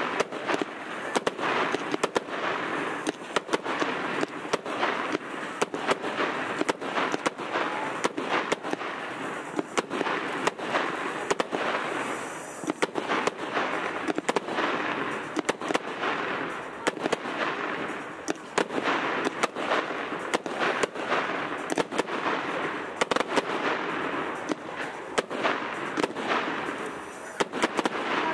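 Royal Fireworks 'Beautiful Leaves' aerial fireworks firing shot after shot: a dense, unbroken run of sharp bangs and crackles.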